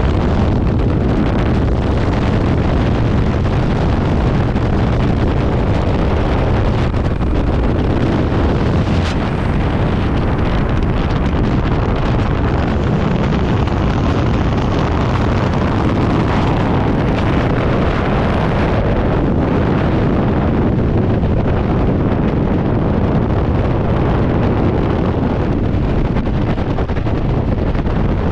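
Freefall wind rushing over a skydiver's camera microphone: a loud, steady roar of noise, heaviest in the low end.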